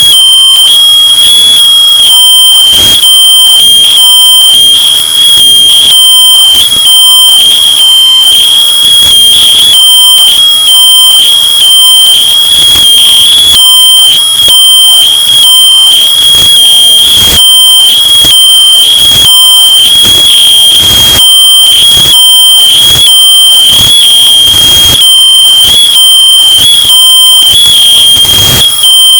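Smoke alarm sounding: a shrill, high beeping tone in rapid regular pulses, bass boosted and heavily distorted, very loud.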